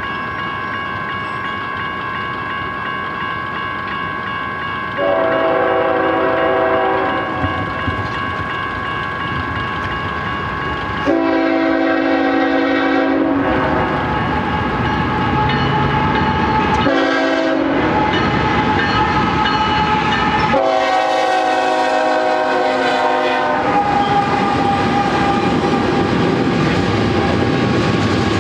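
BNSF freight locomotive's air horn sounding the grade-crossing signal: long, long, short, long, over the crossing's warning bell ringing. Near the end the double-stack train rolls through, its wheels clattering over the rails.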